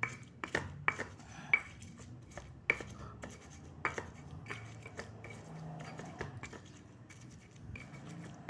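A pestle pounding and grinding garlic with salt in a black stone mortar (cobek): irregular sharp knocks, one every second or so and most frequent in the first four seconds, with a low gritty rubbing between strokes.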